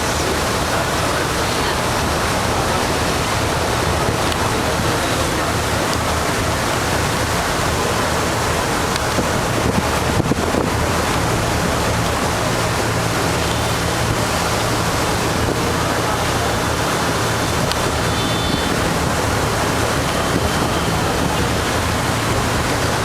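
Steady rush of wind and water aboard a moving ferry, with wind buffeting the microphone. About halfway through, the low steady drone of the ferry's engine comes up under the rush.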